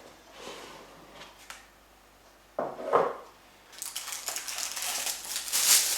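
Camera box packaging being handled and opened: a few faint clicks, a single knock about halfway, then steady rustling and scraping of the packaging toward the end.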